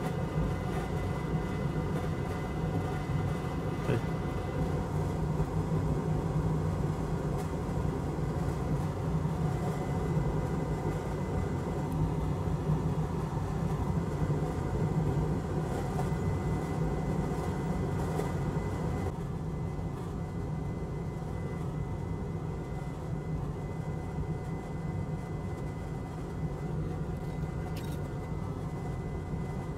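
Steady low hum and hiss of running bench equipment, with a faint steady high whine; it becomes slightly quieter about two-thirds of the way through.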